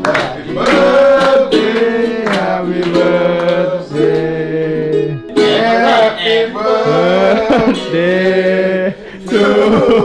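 Singing with a strummed plucked-string accompaniment, a song of held notes that runs on from the birthday singing.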